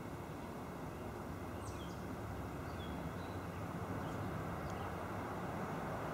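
Outdoor ambience: a steady low background rumble with a few short, high bird chirps scattered through it.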